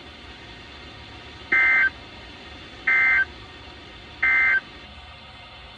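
Emergency Alert System end-of-message (EOM) data tones: three short, loud bursts of two-tone digital warble, about a second and a half apart, signalling the end of the alert.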